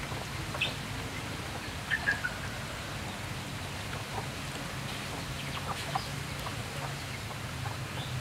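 Chickens clucking now and then, a few short calls scattered over a steady low hum and hiss.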